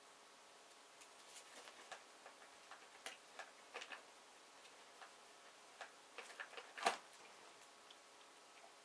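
Faint, irregular crinkling and clicking of a plastic shopping bag and snack packaging as a cat noses and paws into it, with one sharper crack late on.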